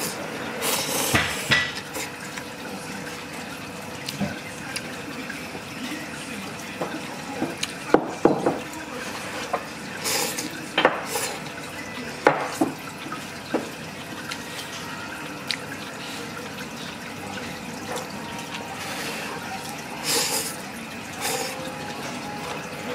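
Ramen-shop kitchen sounds: running water and a steady wash of noise, with dishes and utensils clinking and clattering now and then.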